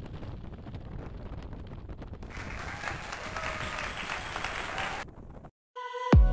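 Road and wind noise from a moving car on a highway, a low steady rush, with a brighter hiss that cuts in about two seconds in and cuts off suddenly about five seconds in. After a brief dropout, outro music with plucked or struck notes starts near the end.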